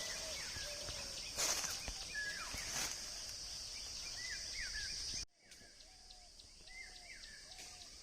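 Outdoor orchard ambience: a steady high insect buzz with repeated short bird calls over it. Two brief rustles come about a second and a half and three seconds in, and the whole sound drops suddenly in level just after five seconds.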